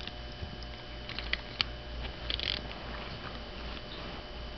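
Cocker spaniel mouthing and nibbling a plush airplane toy: a few sharp clicks of teeth on the toy and a brief rustle of fabric.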